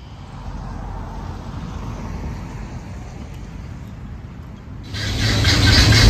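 Low, steady outdoor rumble. About five seconds in it jumps suddenly to a much louder, fuller noise.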